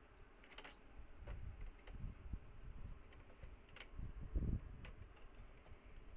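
Faint clicks and taps as a snap-off utility knife is handled against a plastic router casing, with a dull thump about four and a half seconds in.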